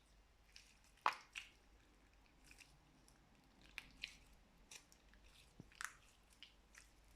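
Slime being squished and poked by hand, giving a string of irregular small sticky clicks and pops, the loudest about a second in.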